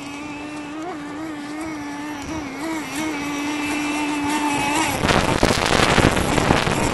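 Radio-controlled racing boat's motor running at speed, a steady high whine that wavers slightly in pitch and grows louder as the boat approaches. About five seconds in it becomes a loud, rough rushing noise as the boat passes close.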